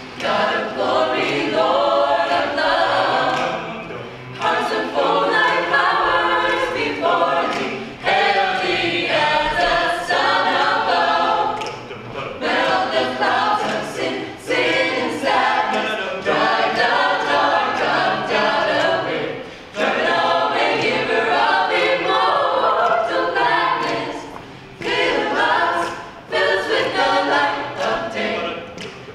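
Mixed a cappella group of men's and women's voices singing an upbeat gospel song in harmony, without instruments, in phrases of a few seconds with short breaks between them.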